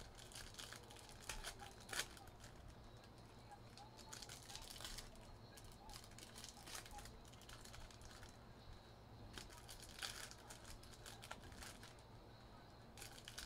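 Foil trading-card pack wrappers crinkling and tearing as packs are pulled open by hand: faint, in scattered bursts of crackle, the sharpest about two seconds in.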